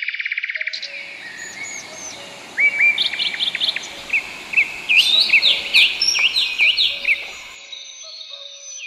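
Several birds chirping and calling: a rapid trill at the start, then repeated short rising and falling notes, over a steady rushing hiss that stops shortly before the end.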